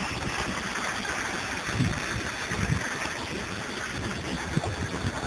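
Steady rushing of water from a small garden pond cascade, with wind buffeting the phone's microphone in low gusts, strongest about two seconds in and near the end.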